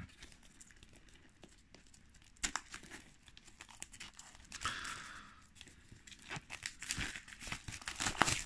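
Plastic shrink-wrap being torn and peeled off a steelbook case, crinkling and crackling on and off from about two and a half seconds in, busiest near the end.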